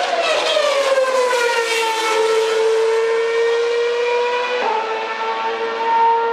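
Formula One car's 2.4-litre V8 engine at high revs, its pitch sliding down over the first couple of seconds as the car passes and slows, then holding a steady high note. There is a brief break, a gear change, about three-quarters of the way through.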